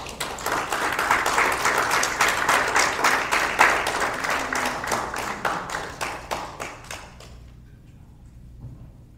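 Audience applauding, many hands clapping, then dying away about seven seconds in.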